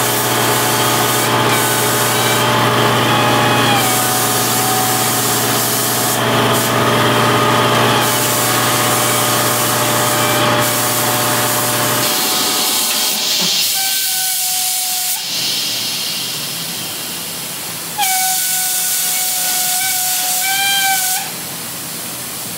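Air spray gun hissing in repeated bursts as the trigger is pulled and released while paint is sprayed, with a faint wavering whistle from the air flow. A steady low hum underneath stops about halfway through.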